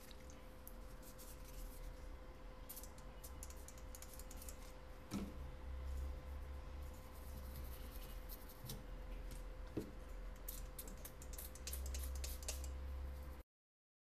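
A bristle brush scrubbing a phone's circuit board, making faint scratchy strokes in three runs, over a steady low electrical hum. A couple of light knocks come in between, and the sound cuts off suddenly near the end.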